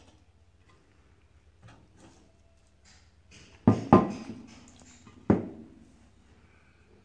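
Raw chicken pieces being handled and arranged in a granite-coated cooking pot, with soft handling noise and three sharp knocks with a short ring: two close together a little over halfway through, and one more about a second and a half later.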